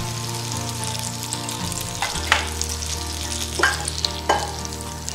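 Butter and a little oil sizzling gently in a nonstick frying pan as the butter melts, with three brief knocks in the second half.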